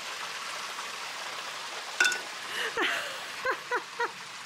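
Water rushing steadily through the gate into a drained dry dock as it starts to flood. About two seconds in there is a sharp click, then a few short calls falling in pitch, the last three in quick succession.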